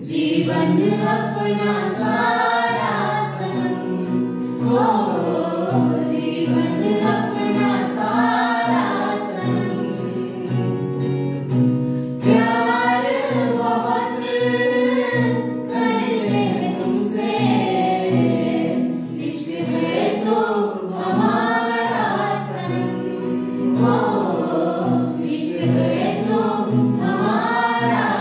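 A small group of male and female voices singing a Hindi film song together, accompanied by an acoustic guitar playing chords.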